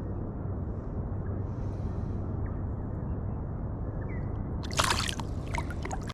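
Water sloshing over a steady low rumble, with a brief louder splash and a few clicks about five seconds in.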